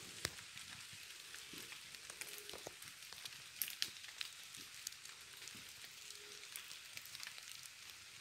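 Faint, steady hiss of light drizzle on forest leaves, with scattered small clicks and crackles of footsteps on wet leaf litter and twigs; two sharper clicks come about three and a half seconds in.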